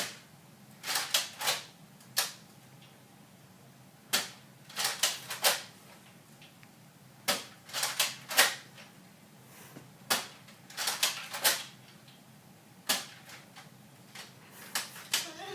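Nerf Rampage pump-action dart blaster being worked and fired: sharp plastic clacks in quick clusters of two to four, every two to three seconds.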